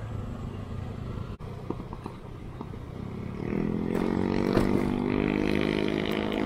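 Motorcycle engine running on the ride. About three and a half seconds in, a louder, steady engine note comes in over the low hum.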